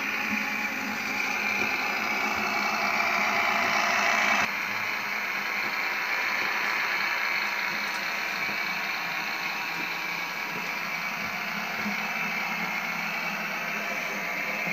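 Märklin HO model of a DB class 724 railbus (ex-VT 95.9) running with its mfx digital sound decoder: a steady diesel engine sound from the model's small onboard speaker. A louder rushing layer cuts off suddenly about four and a half seconds in.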